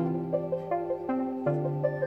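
Background music: a gentle melody of struck notes, about three a second, over held bass notes.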